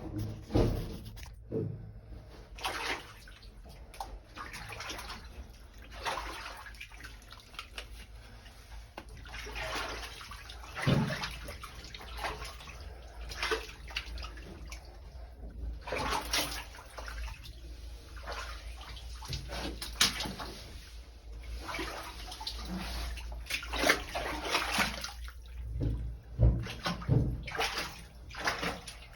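Water splashing and sloshing in irregular bursts, with a few sharp knocks.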